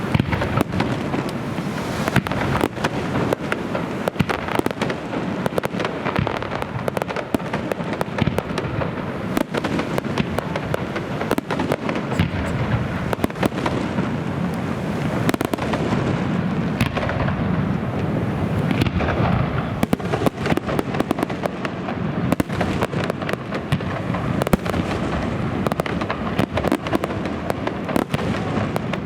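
Fireworks display: a dense, continuous barrage of bangs and crackles, many per second, with no pause.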